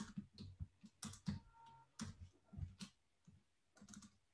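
Computer keyboard being typed on: a run of faint, irregular key clicks.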